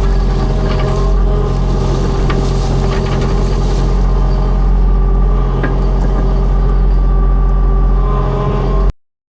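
Skid steer engine running steadily under work, with scattered clanks and rattles; the sound cuts off abruptly near the end.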